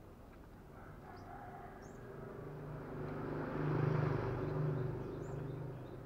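A motor vehicle passes, its engine sound rising to a peak about four seconds in and then fading. A few short, high bird chirps sound over it.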